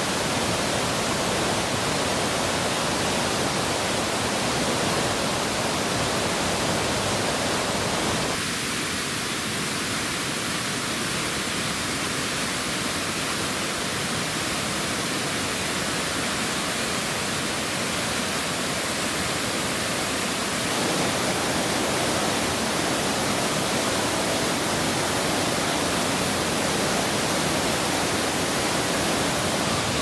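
Water rushing steadily over tiered waterfall cascades. The sound turns slightly duller and quieter about eight seconds in and fuller and louder again about twenty seconds in.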